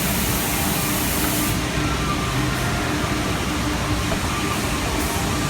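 Nikuni LAX submerged sludge cleaner's pump running steadily, a constant machine noise with a low rumble and a steady hum; the high hiss drops away about one and a half seconds in.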